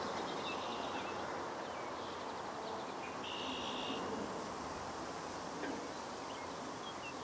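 Steady outdoor background noise with scattered faint high chirps of small birds, and a short buzz about three seconds in.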